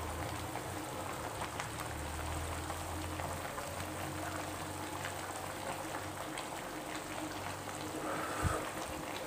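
Stir-fried coconut palm heart bubbling and sizzling steadily in an uncovered pan on a lit stove, with a soft thump near the end.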